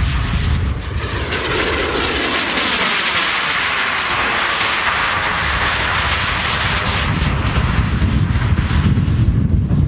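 JetCat P100 model jet turbine on a PULS scale glider flying overhead: a steady rushing whine whose pitch shifts as it passes, with a low rumble underneath that grows near the end.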